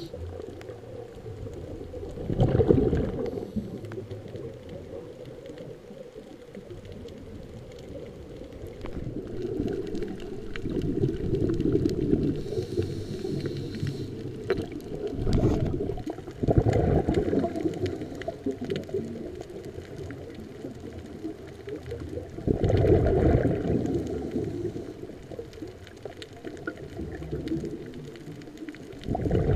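Underwater sound of a scuba diver breathing through a regulator: a low rumble of exhaled bubbles about every six seconds, with a fainter hiss of inhalation between them.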